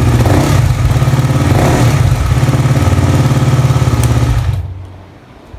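KTM Duke 250 single-cylinder four-stroke engine idling with a steady, even beat, then stopping about four and a half seconds in.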